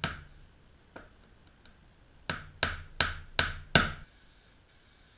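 Hammer blows driving a nail into a wooden strip on a plywood panel: a tap at the start, a light tap about a second in, then five harder blows at about three a second, the last the loudest.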